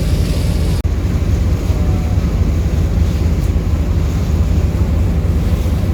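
Steady low drone of a ferry's engines, with wind rushing on the microphone. The sound cuts out for an instant about a second in.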